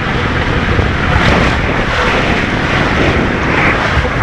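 Steady rushing of water and the rumble of a rider sliding down an enclosed water slide tube, a loud continuous wash of noise inside the tube.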